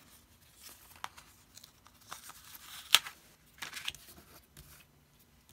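Pencil tracing on paper around the openings of a foam card layer, with paper and foam board being handled: short scratchy strokes and light rustles, and a sharp tap about three seconds in.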